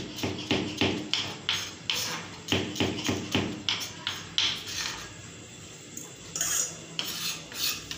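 Kitchen knife finely chopping a green chilli on a wooden cutting board: quick taps of the blade on the board, about four a second, stopping about halfway through. A few softer sounds follow near the end.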